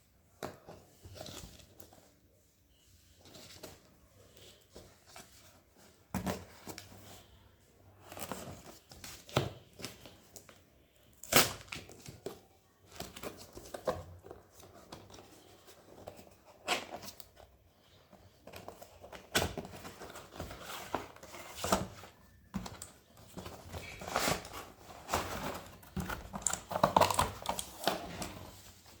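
A keyboard's cardboard box and packaging being opened and handled: tearing and crinkling with scattered sharp knocks and snaps, the loudest snap about eleven seconds in.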